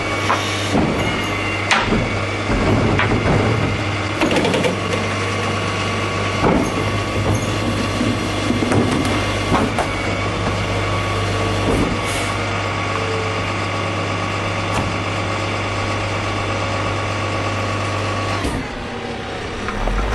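Garbage truck engine idling steadily, with scattered clunks and rattles; the engine sound drops away near the end.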